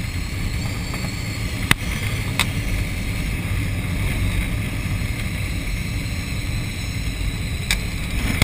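Wind rushing and buffeting into the cockpit of a Schweizer 1-34 glider on aerotow with its canopy open, a steady low rush of air. Two sharp clicks come about two seconds in and another near the end.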